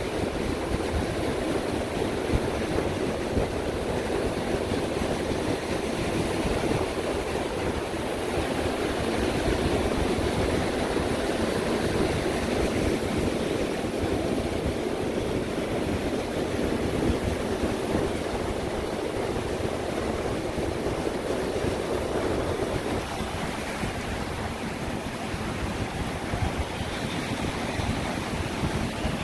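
Steady wash of ocean surf on the beach, with wind rumbling on the microphone.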